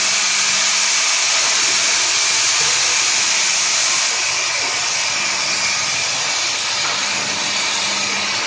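Steady, loud hiss of rushing air, like compressed air blowing, over a steady low machine hum, from a vertical moulding press in a hardware factory.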